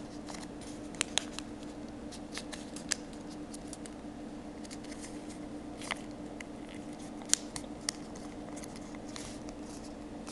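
A square of paper being folded and creased by hand for an origami bird base: scattered crisp crackles and ticks of paper, a few sharper snaps among them, over a steady low hum.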